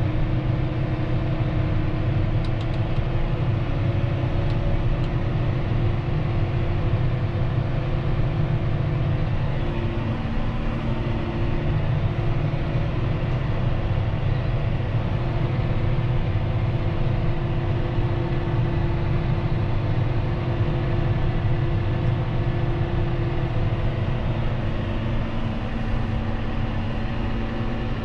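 John Deere 6215R tractor's six-cylinder diesel engine running at a steady speed, an even drone with no changes in pitch.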